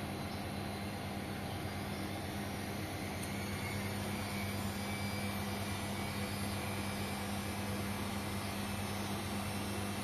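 Bosch Maxx 7 VarioPerfect front-loading washing machine running empty on a cleaning cycle: a steady motor hum with a faint high whine that slowly rises in pitch.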